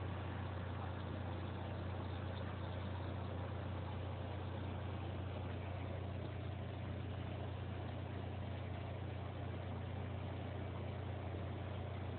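Aquarium equipment running: a steady low hum with an even hiss over it.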